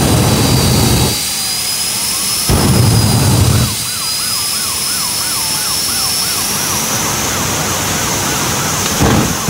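Jet engines of the Aftershock jet fire truck running with a steady high whine, broken by two loud blasts of flame in the first four seconds and another starting near the end. A tone sweeping up and down about three times a second repeats for a few seconds in the middle.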